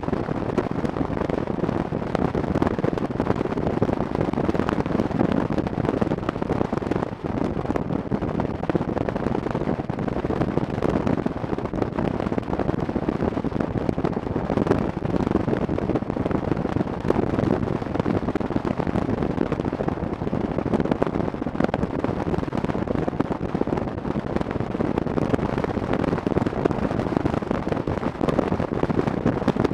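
Motorcycle cruising at road speed: a steady rumble of engine and wind rush, with dense crackling from wind buffeting the microphone.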